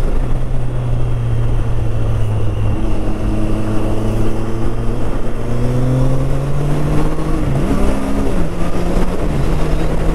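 Triumph Street Triple 765 RS's inline three-cylinder engine running under the rider. The engine note holds steady, rises slowly, then shifts in pitch a few times near the end.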